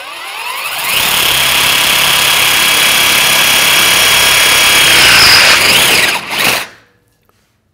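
Metabo SB 18 LTX-3 BL Q I cordless drill, in second gear with hammer off, drilling a 10 mm steel drill bit into steel angle iron: the brushless motor spins up with a rising whine, then runs steadily under load with a high whine from the bit cutting the steel, and stops near the end.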